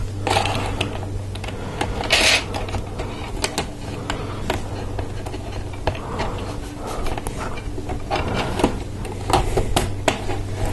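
LEGO Technic plastic parts clicking and rattling as pins and axles are pushed into beams and pieces are handled, with many scattered sharp clicks and a brief rustle about two seconds in. A steady low hum runs underneath.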